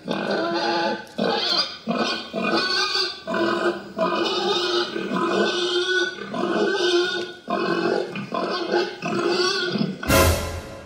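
A man chewing a fried chicken wing and making voiced, mouth-full grunts and moans in repeated bursts. A short, loud noisy rush comes near the end.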